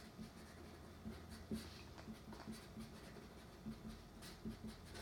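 Felt-tip marker writing on paper: faint, short scratchy strokes.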